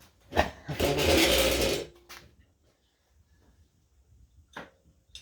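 Tools being handled at a workbench while working an old screwdriver shaft out of its handle: a knock, about a second of rough scraping noise, then a few light clicks.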